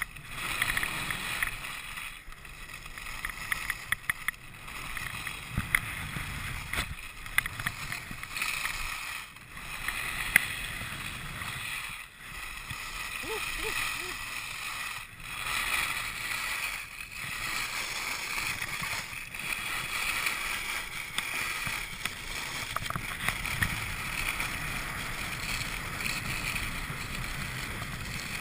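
Salomon snowblades hissing and scraping over snow at speed, mixed with wind rushing over the microphone. The noise rises and falls, with a few sharp ticks in the first few seconds.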